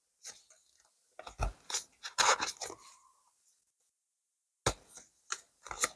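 Tarot cards being handled: a few light taps and short brushing scrapes of card stock, with a quiet gap in the middle.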